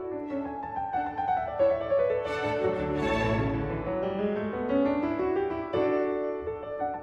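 Instrumental background music, a piano-led classical-style piece with strings.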